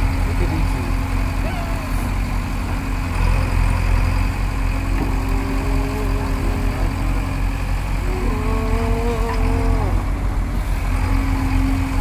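JCB 3DX backhoe loader's diesel engine running steadily with a low drone. Two long, wavering calls rise over it, one about five seconds in and one about eight seconds in.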